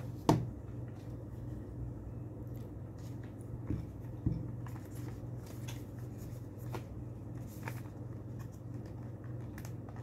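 Desk handling noise: a sharp knock just after the start and two dull thumps around four seconds in, then light taps and scrapes as a small boxed SSD is turned over in the hands, over a steady low hum.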